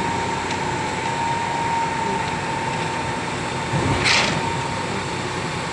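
A machine running steadily, a continuous hum with a steady whine, and one short loud hiss a little past four seconds in.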